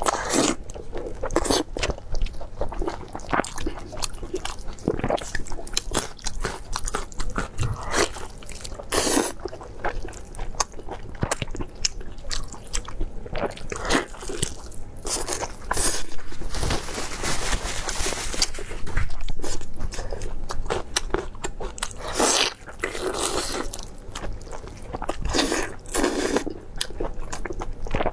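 Close-miked mukbang eating: a person biting and chewing crunchy spicy seafood, with irregular sharp crunches throughout and a denser, louder run of crunching a little past the middle.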